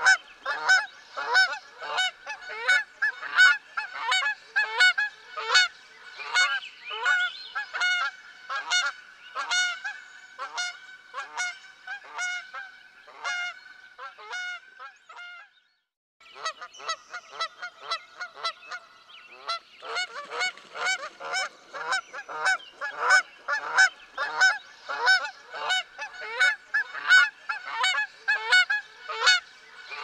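Geese honking rapidly and without pause, many calls overlapping as from a flock. The honking cuts out for under a second about halfway through, then resumes.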